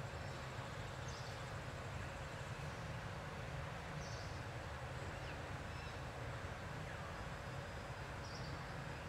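Outdoor forest ambience: a steady low rumble under a thin, high insect drone, with three short, high chirps about one, four and eight seconds in.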